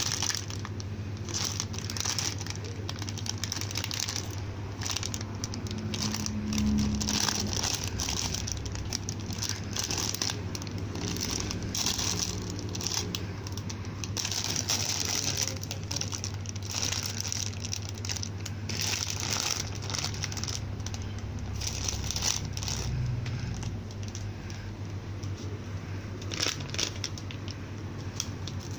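Plastic packaging crinkling and rustling in irregular bursts as a hand handles bagged squishy toys on a wire rack, over a steady low hum.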